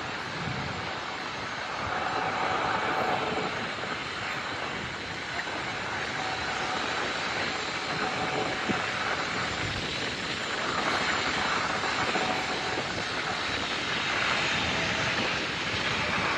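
Jet noise from a departing Boeing 737-800's CFM56-7B turbofans: a steady rushing hiss that swells and eases every few seconds.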